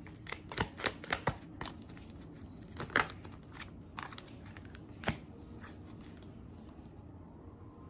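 Tarot cards being handled: a run of light snaps and clicks as the deck is worked and a card is drawn and laid on the spread, dying away after about five seconds.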